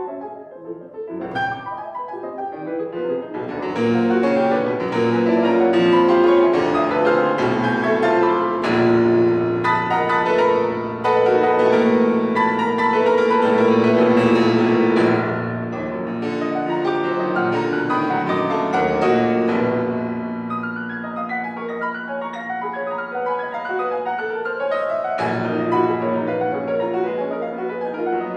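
Solo piano playing classical music, starting softly and growing louder and denser about four seconds in, then easing back somewhat after the middle.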